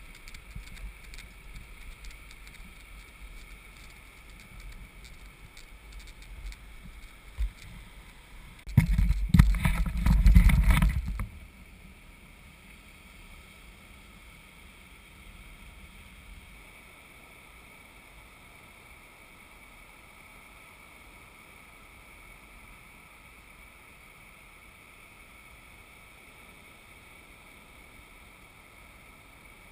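Wind buffeting and handling noise on the camera microphone: a low rumble with light knocks, then a loud rough rumble of about two seconds, after which only a steady faint hiss remains.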